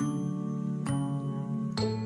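Gentle instrumental background music: soft struck notes over held chords, a new note about once a second.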